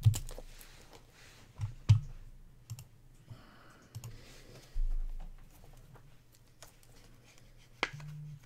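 Scattered clicks and taps of thin plastic card sleeves and a rigid plastic top loader being handled as a trading card is slid in, the sharpest near the start, about two seconds in and near the end, over a steady low hum.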